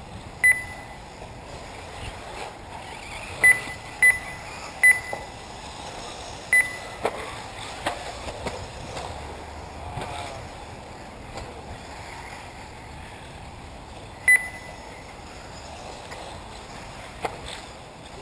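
Short, high electronic beeps from an RC race's lap-timing system, six of them at irregular intervals, each sounding as a car crosses the lap-counting loop. Under them is a steady hiss of the outdoor track, with a few faint clicks.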